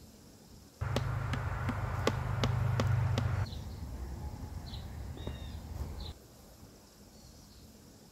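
Dry leaves and twigs catching fire in a steel fire pit: loud crackling with about seven sharp pops over two and a half seconds over a low steady rush of flame, then softer burning that stops abruptly about six seconds in.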